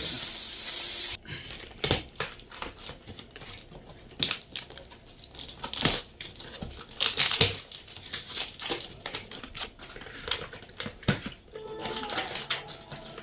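Laptop packaging being handled and opened: irregular crinkling and rustling, with scattered sharp taps and knocks.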